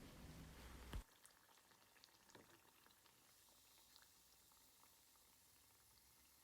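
Faint sizzling and crackling of prawn vadai deep-frying in hot oil, with a sharp click about a second in, after which it is quieter.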